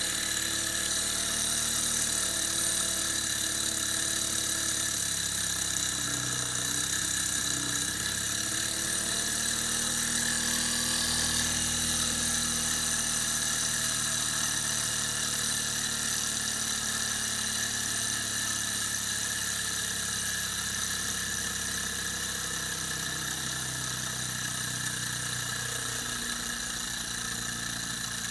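Small HB11 Stirling engine running steadily: a whirring, high-pitched mechanical whine of the spinning flywheel and piston, carrying on once the spirit burner has been removed.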